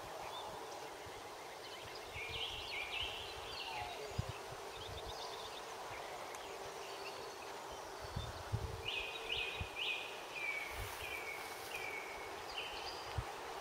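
Outdoor trackside ambience: a songbird sings two phrases of short descending notes, one about two seconds in and one from about nine seconds in, over low, uneven wind rumble on the microphone.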